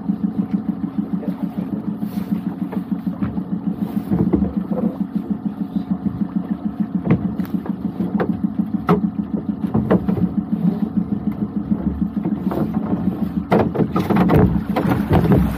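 Small outboard motor on a dinghy running at idle with a fast, even pulse, while scattered knocks from pot-hauling come through, busiest near the end as a pot is hauled aboard.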